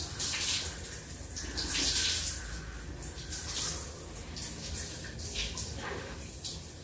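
Shower water running and splashing in uneven spurts as long wet hair is rinsed under it.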